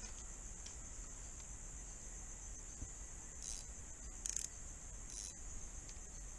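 Evening insect chorus: a steady, high, continuous trilling. Three short rustles come in the middle.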